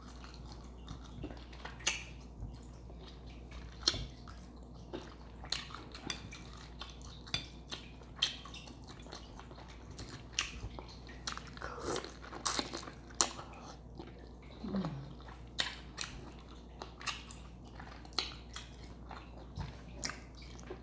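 Close-miked chewing and wet mouth smacking of a person eating a saucy seafood boil, a steady run of short sharp smacks and clicks.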